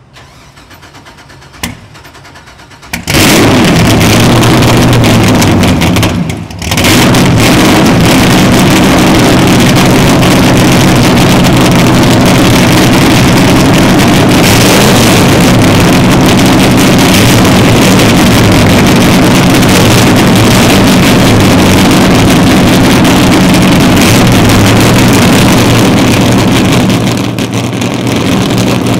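Sterling 750 hp race engines of a Skater 438 catamaran firing up about three seconds in, after a single click. They falter briefly a few seconds later, then idle loud and steady.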